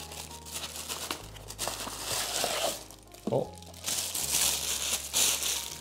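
Packaging being unwrapped by hand: irregular crinkling and rustling with some tearing, in several spells as the box holding a flask is opened.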